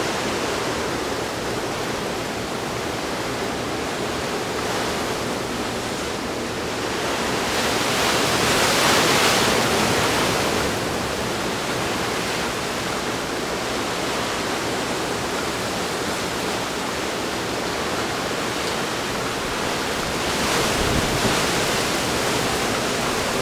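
Hurricane wind and rain: a steady rush of wind-driven rain, with a gust swelling about eight seconds in and easing a couple of seconds later, and a smaller swell near the end.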